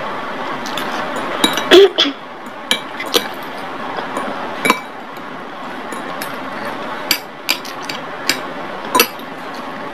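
Metal spoon and fork clinking and scraping against a glass bowl: a dozen or so sharp, irregular clinks, the loudest about two seconds in, over a steady background hiss.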